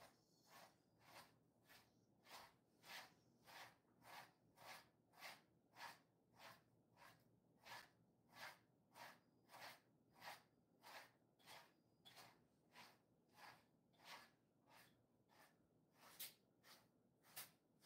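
Faint, even strokes of a grooming brush through a Jindo-mix dog's coat, about two strokes a second.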